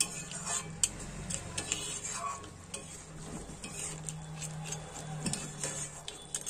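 Metal spatula stirring a thick crab and potato curry in a metal kadai, with irregular clinks and scrapes of the spatula against the pan over a low steady hum.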